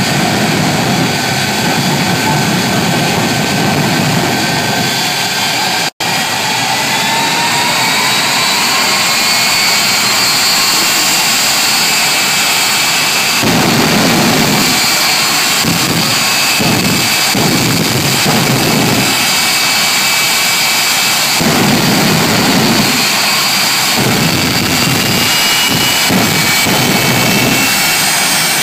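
Jet engines running loud and steady, with a high whine that slowly rises in pitch. In the second half, surges of deeper rumble come and go irregularly.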